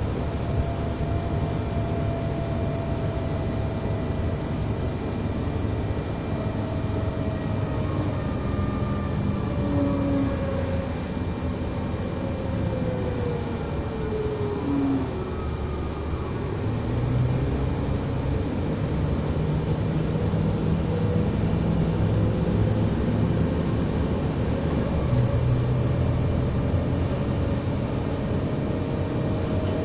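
Volvo ALX400 double-decker bus under way: engine and drivetrain running with a steady low rumble, and thin whining tones that slide down in pitch through the middle. The engine note grows stronger in the second half.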